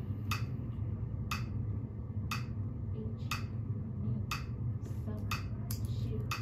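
Metronome clicking steadily about once a second, with a few fainter clicks in between near the end, over a steady low hum.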